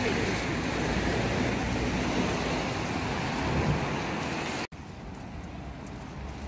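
Steady outdoor street background noise with passing traffic. It cuts off abruptly a little over four and a half seconds in to a quieter outdoor background with a few faint ticks.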